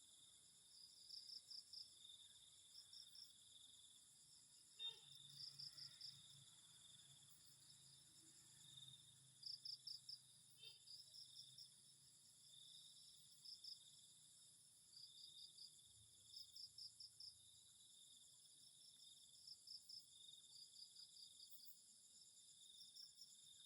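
Insects chirping, likely crickets: a steady high buzz under clusters of quick pulsed chirps that repeat every second or two. Two faint clicks come about five and eleven seconds in.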